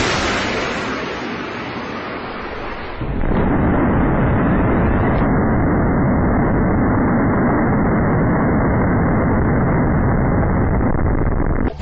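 Rocket boosters of ship-launched Harpoon anti-ship missiles firing: a sudden roar that fades over about three seconds, then a second launch roar that holds steady until near the end.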